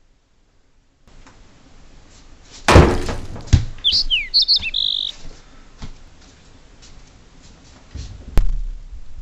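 A loud thump about three seconds in and a second knock just after, followed by a quick run of high, gliding chirps, then a sharp knock near the end.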